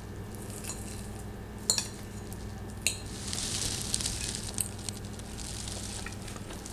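Faint sizzling of a hot okonomiyaki, a savory Japanese pancake, with a few light clicks of a utensil, over a steady low hum.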